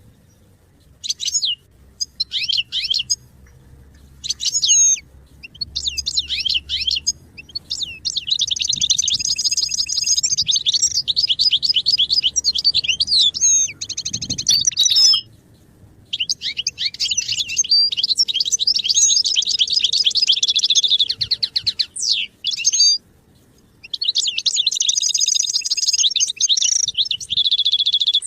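European goldfinch singing: a few short twittering calls at first, then long, fast, twittering song phrases of several seconds each, broken by brief pauses.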